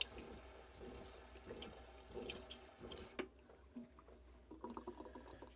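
Thin stream of water from a kitchen faucet running into a stainless steel sink over raw chicken being rinsed, faint. The water stops about three seconds in, leaving a few soft handling sounds of the wet meat.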